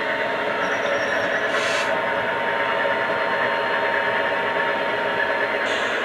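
DCC sound decoder in a Hattons OO gauge Class 66 model locomotive playing the recorded running sound of the real loco's EMD two-stroke diesel as the model moves off slowly, heard through its small onboard speaker. The engine sound runs steadily, with short hisses about two seconds in and again near the end.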